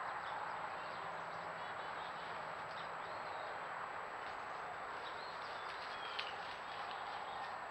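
Woodland background through a trail camera's microphone: a steady hiss with faint, scattered bird chirps and a thin, steady high tone. One sharp click comes a little after six seconds.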